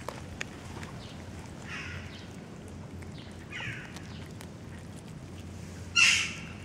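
A cat eating fish off the ground, with a few faint chewing clicks near the start. A bird calls in the background: two faint calls that fall in pitch, then a louder short call near the end.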